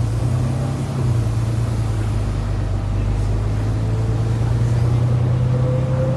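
Volvo B9TL double-decker bus's six-cylinder diesel engine running under way, heard from inside the passenger saloon as a steady low drone. A faint whine rises in pitch from about four seconds in as the bus picks up speed.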